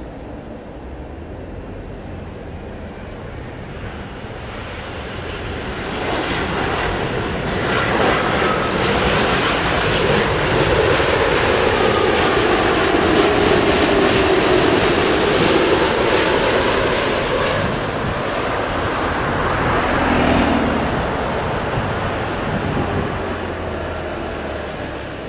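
Boeing 787 jet engines on landing approach, growing steadily louder as the airliner flies close past. A whine slides down in pitch as it goes by, then the engine noise slowly fades.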